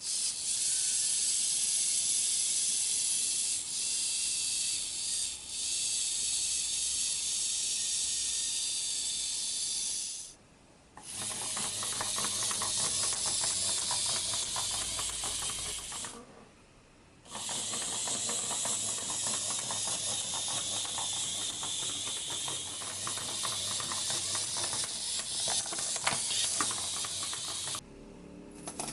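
Clockwork mechanism of a wind-up toy running as its mainspring unwinds: a steady, hissing whir of fast-turning gears. Later runs also carry a rapid fine ticking. It runs three times, stopping briefly about ten seconds in and again about sixteen seconds in.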